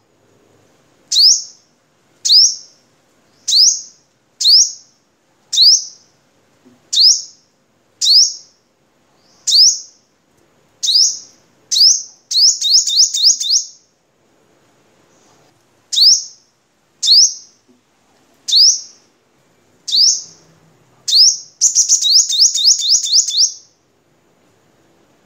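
Male sunbird singing: a series of sharp, high, upswept notes about one a second, broken twice by a fast run of rapid notes, once around the middle and once near the end.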